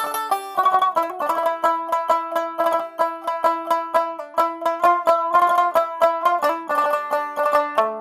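Background instrumental music of quickly picked plucked strings, a fast run of bright notes over a steady pulse.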